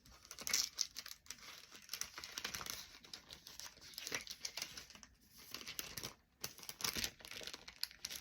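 Packaging and paper crinkling and rustling in irregular bursts as small craft items are handled.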